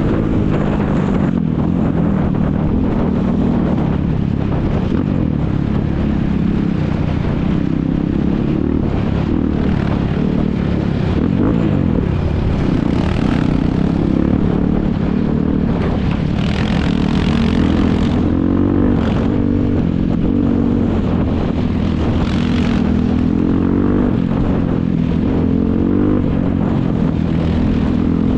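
ATV (quad bike) engines running hard, pitch rising and falling continually as they rev up and back off, with more than one engine heard at once.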